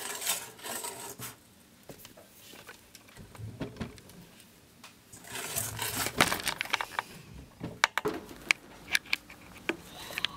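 Wire whisk scraping and clinking against a stainless steel bowl while whisking egg yolk and milk, in uneven spells, followed by a run of sharp clicks near the end.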